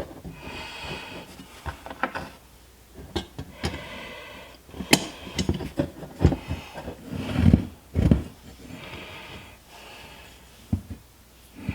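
Hands handling and fitting the metal bracket and small fasteners of a dead-pedal footrest: irregular light clicks and metal knocks with rustling, and a few heavier thumps about six to eight seconds in.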